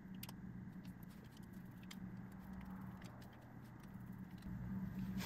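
Faint light clicks and ticks of a small metal carburetor vacuum valve being handled and reassembled, with a screwdriver working its adjusting screw, over a steady low hum.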